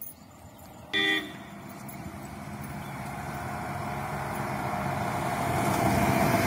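A short vehicle horn toot about a second in, then a Mahindra Bolero SUV approaching, its engine and tyre noise growing steadily louder.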